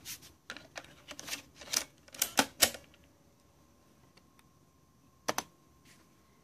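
Plastic clicks and clacks of 3.5-inch floppy disks being handled and a blank disk pushed into a Tandy Portable Disk Drive 2, over about the first three seconds, then a sharp double click about five seconds in.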